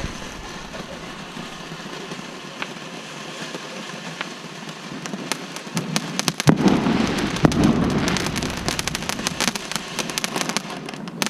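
Fireworks going off: scattered pops, then about six and a half seconds in a loud blast followed by several seconds of rapid crackling.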